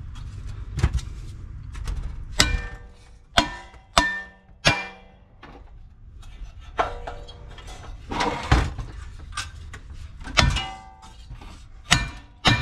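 Hammer striking the bent crankshaft and crankcase of a Briggs & Stratton 550EX mower engine, about ten irregular blows, several ringing metallically, as the seized shaft is driven out.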